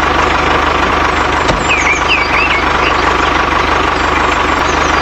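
Steady running of a tractor engine sound with a fast, even chug, at a constant level throughout. A few short birdlike chirps are heard about two seconds in.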